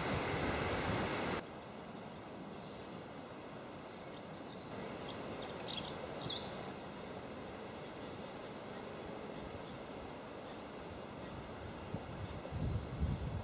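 Wind buffeting the microphone for about the first second and a half, cut off abruptly. Then a quiet outdoor background in which a bird sings a burst of quick high notes for about two seconds, around five seconds in.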